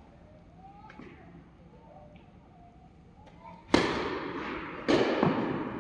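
Tennis racket strikes on a ball during a rally: two sharp, loud hits a little over a second apart, starting about three-quarters of the way in, each trailing off slowly.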